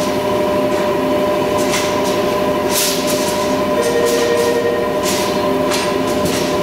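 CNC spring coiling machine running as it coils heavy steel wire into a suspension spring: a steady mechanical whine and rumble, with several short hisses scattered through.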